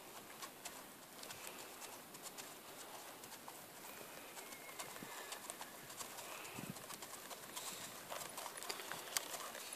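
Faint hoofbeats of a horse walking on a dirt track, with a few short bird calls in the background.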